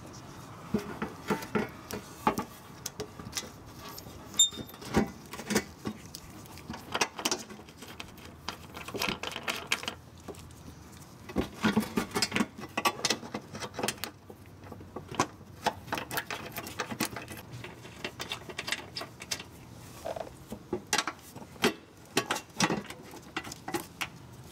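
Irregular clicks, knocks and rustling of hands handling a corrugated plastic wiring loom and fitting a metal mounting plate against a car's underbody.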